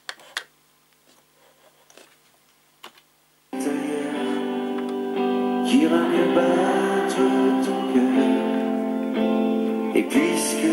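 Sharp clicks of the NEC KD-1000 DAT deck's front-panel buttons being pressed, then about three and a half seconds in, music starts abruptly as the deck begins playing back a tape: a song with guitar.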